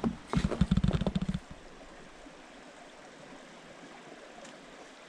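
A quick run of crunching knocks in snow for about the first second and a half, then a faint, steady rushing noise.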